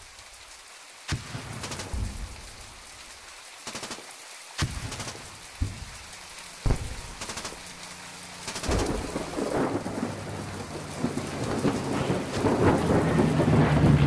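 Layered war sound-effects track: steady rain under a series of sudden deep booms, each rolling off into a rumble. From about nine seconds in, the noise swells and a low droning hum builds and grows louder.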